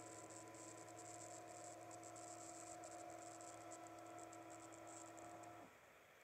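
Motor of a Litter-Robot self-cleaning litter box turning its globe in a cleaning cycle: a faint steady hum that cuts off about five and a half seconds in as the globe stops. A faint rapid high ticking runs alongside and carries on after the hum ends.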